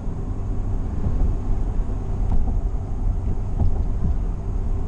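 Steady low road and engine rumble inside a moving car's cabin, heard while driving along at highway speed.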